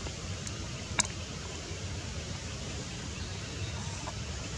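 Steady outdoor forest background noise, an even hiss, with one sharp click about a second in and a couple of faint ticks.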